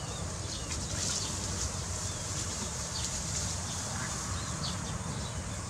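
Outdoor rural ambience: scattered short, high bird chirps over a steady low rumble.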